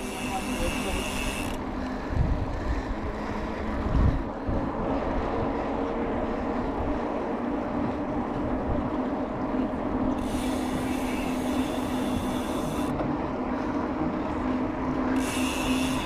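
Bicycle riding noise picked up on a bike-mounted camera: steady tyre hum on asphalt and wind, with the rear hub's freewheel buzzing in three stretches while the rider coasts. Two low thumps come about two and four seconds in.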